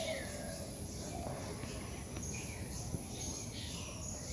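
Outdoor ambience: several birds chirping and calling in short notes over a steady high-pitched insect drone, with a low rumble underneath.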